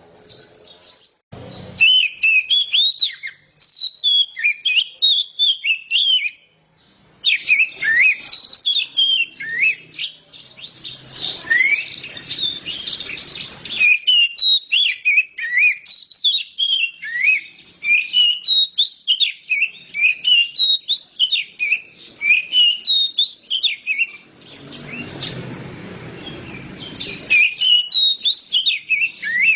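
Oriental magpie-robin (kacer) in full, continuous song: a long run of rapid, varied whistled and chirping notes that slide up and down in pitch. The song breaks off briefly near the start and around seven seconds in, and thins out for a couple of seconds near the end.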